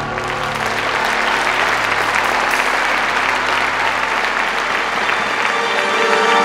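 Large crowd applauding over background music; the music's held low notes drop out about five seconds in.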